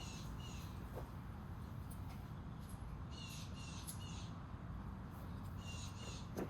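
A bird calling in short, harsh notes, in groups of two or three, at the start, about three seconds in and near the end, over a steady low rumble.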